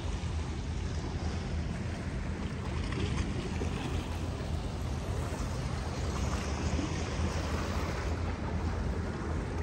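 Steady low rumble under a continuous rush of wind and water noise.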